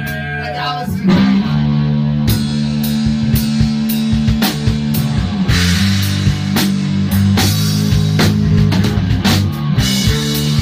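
Rock music with bass, guitar and a drum kit; the drums come in hard about a second in.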